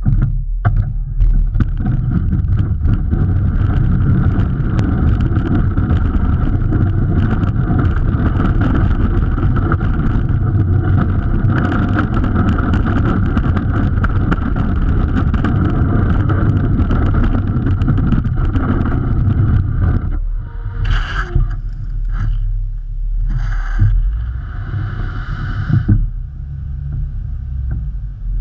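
Snowplow blade plowing a snowy road: snow rushing along the moldboard and the cutting edge scraping the pavement, a dense crackling rattle over a steady low drone. About twenty seconds in the scraping drops away, leaving a quieter run with a few short rushes of noise.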